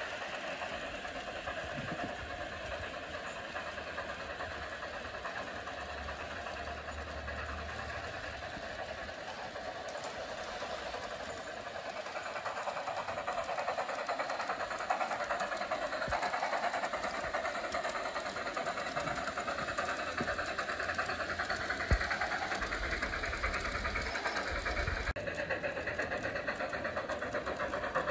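G-scale streamlined double Hudson Garratt model locomotive and its freight cars running along garden railway track: a steady, fast mechanical rattle of wheels and drive. It grows louder about halfway through as the train nears. A single sharp click comes about two-thirds of the way in.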